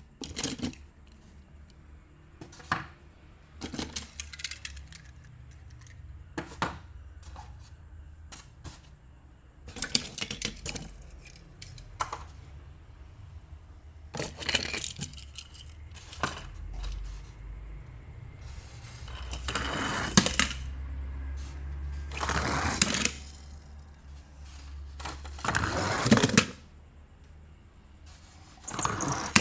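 Die-cast toy cars clinking and clattering against one another in a cardboard box as the box is handled: a string of short metallic clatters, with a few longer rattling scrapes in the second half.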